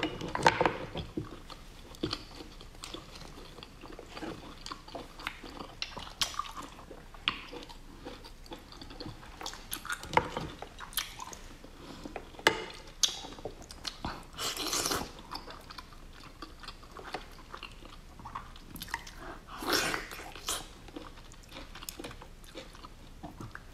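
Close-up eating sounds of large sea snails in spicy sauce: chewing, wet sucking and squelching, and small clicks of the shells being handled. There are longer, louder noisy stretches about 15 and 20 seconds in.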